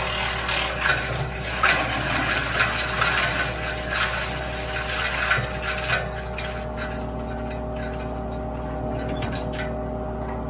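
WoodMaxx MX-8800 PTO-driven wood chipper running off a Kubota L3901 tractor, chewing apple-tree prunings with irregular crackling and snapping for about six seconds, then running on steadily with only a few light clicks.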